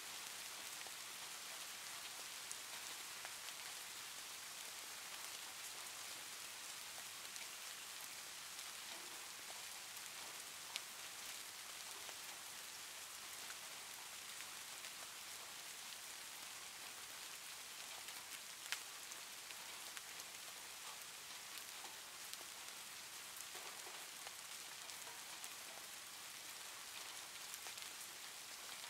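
A steady, even hiss like falling rain, with a couple of faint clicks.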